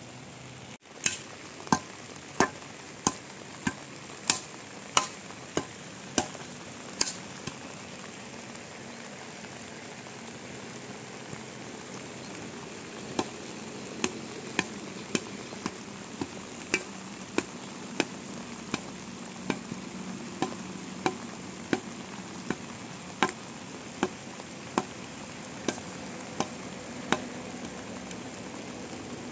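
Steady rain hiss with a run of sharp, evenly spaced knocks, about three every two seconds, that pause for several seconds and then resume: a long-handled hoe or shovel striking stony ground.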